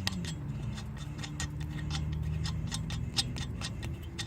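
Socket ratchet clicking rapidly and evenly, about five clicks a second, as a lug nut is run onto a car wheel stud.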